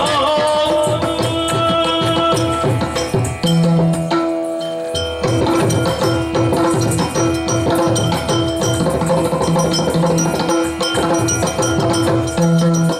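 Yakshagana drum accompaniment: chende and maddale played in a fast, dense rhythm under held pitched notes.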